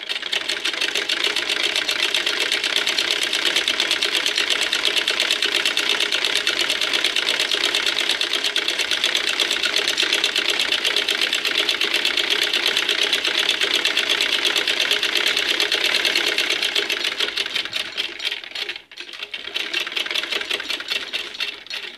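Domestic sewing machine stitching a long seam, a fast, even clatter of needle strokes. About three seconds before the end it falters and briefly stops, then runs again.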